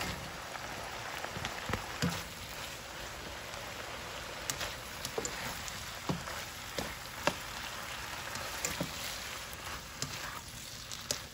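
Sliced chicken, black fungus and freshly added loofah chunks sizzling in a nonstick wok, with scattered clicks and scrapes of a spatula stirring them against the pan.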